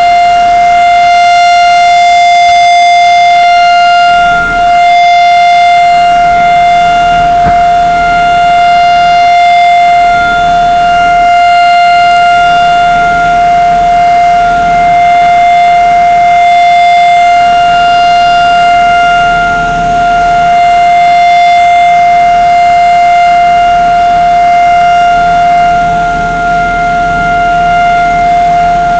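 Civil-defense siren sounding one loud, steady, unbroken tone: the Israeli Memorial Day siren for fallen soldiers.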